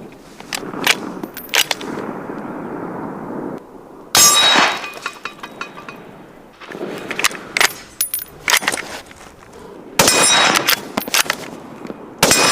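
Sharp metallic clanks and clicks, with three much louder sudden bangs about four, ten and twelve seconds in, each ringing on briefly.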